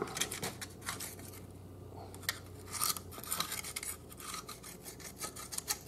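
A small metal pick scraping and scratching packed grit and grime out of a DR Field & Brush Mower's gearbox housing, in short irregular strokes. The housing is caked full of the dirt that wore out its sprockets.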